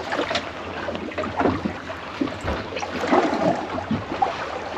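Wind on the microphone and sea noise aboard a small fishing boat in a lumpy sea, with scattered short knocks and clatters.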